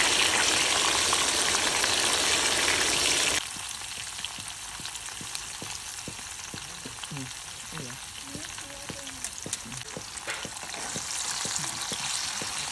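Bell peppers and garlic frying in oil in a cast-iron skillet, sizzling, with a spatula stirring and clicking against the pan. The sizzle drops suddenly about three seconds in and carries on softer, with sharp clicks as tomatoes go in and the spatula moves them.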